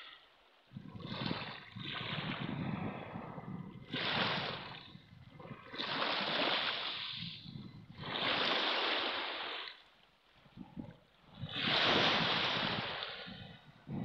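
Small waves breaking and washing up a pebble beach, one surge after another every couple of seconds, with a short lull about ten seconds in.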